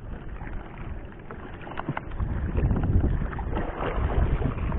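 Wind rumbling on the microphone over water lapping against a small paddle boat, with a few faint knocks from handling in the boat; the rumble grows louder about two seconds in.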